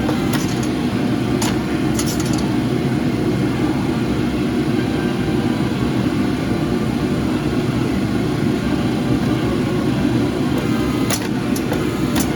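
Steady low drone of forging equipment running, with a few short sharp clicks near the start and again near the end.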